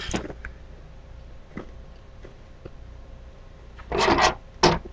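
Rubbing and scraping noises from toy wrestling figures being handled in a toy ring. There is a longer scrape about four seconds in and a short one just after.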